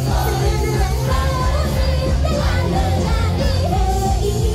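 Idol group performing a pop-rock song live: female voices singing over a loud backing track with heavy bass and drums.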